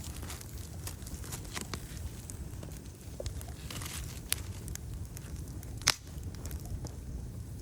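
Wood fire burning outdoors: a steady low rumble of flame with scattered crackles and pops. The loudest is a sharp pop just before six seconds in.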